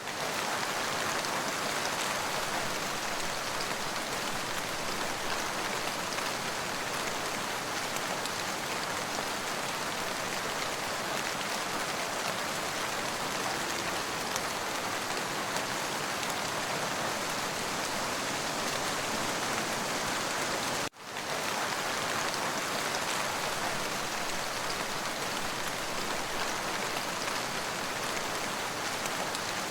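Rain falling steadily, a dense even hiss of drops hitting surfaces. The sound cuts out for an instant about two-thirds of the way through, then resumes unchanged.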